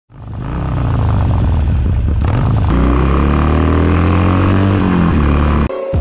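Harley-Davidson Forty-Eight's V-twin engine running with a rough, uneven rumble, then held at revs that fall slowly in pitch from about halfway. The sound cuts off suddenly shortly before the end, as music starts.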